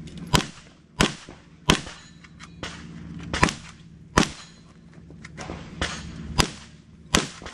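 A string of gunshots fired from a prone position: about seven loud, sharp reports with a few fainter ones between them, mostly about two-thirds of a second apart, with a longer pause between shots near the middle.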